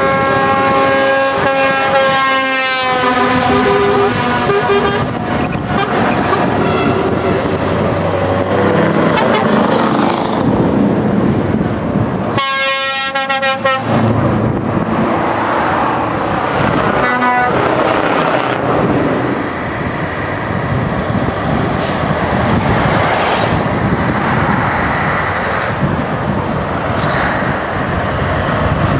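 A convoy of lorries passing below, with steady engine and tyre noise. Truck air horns sound several times: a long blast at the start that falls in pitch as the truck passes, a loud blast of about a second and a half around twelve seconds in, and a short toot a few seconds later.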